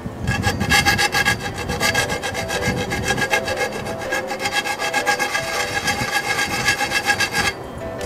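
A hand tool rasping back and forth on a soft copper pipe in quick, even strokes, about six a second, which stop shortly before the end. Background music plays underneath.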